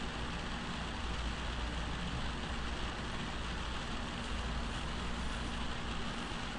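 Steady background hiss with a low hum underneath and a faint steady tone: the recording's noise floor while nothing else sounds.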